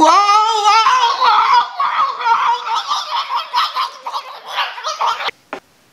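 A high-pitched squealing, giggling voice. It swoops up sharply at the start, then warbles and wavers for about five seconds and cuts off suddenly.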